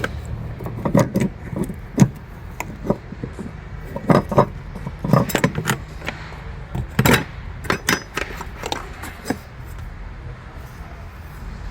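Irregular metallic clicks and knocks of a screwdriver and metal parts being worked by hand at a fuel pump's locking ring, over a steady low hum.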